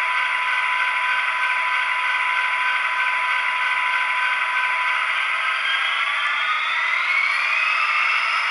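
Soundtraxx Tsunami sound decoder in an HO-scale Norfolk Southern SD80MAC model, playing diesel locomotive sound through its small speaker: a steady running sound with a high whine, then about six seconds in a rising whine as the model starts to back away, levelling off near the end.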